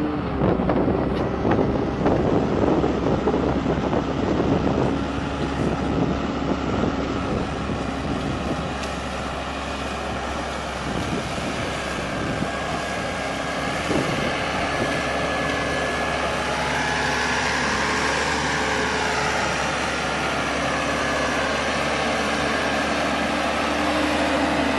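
Crawler tractor engine running steadily as the machine pulls a ditching implement through wet ground, rougher and louder in the first few seconds. A higher whine rises and falls briefly past the middle.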